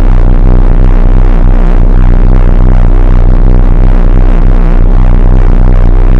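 Loudspeaker giving out a loud, annoying pulsing low buzz: a deep steady hum with a rapid throb over it.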